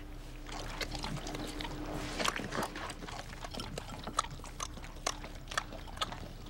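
A golden retriever chewing a peanut butter and jelly sandwich: irregular wet smacking and clicking of its jaws and tongue.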